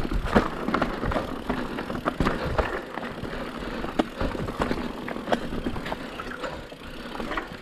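Mountain bike running down a rough dirt trail: steady tyre noise on the ground, broken by frequent irregular clacks and rattles as the bike goes over bumps.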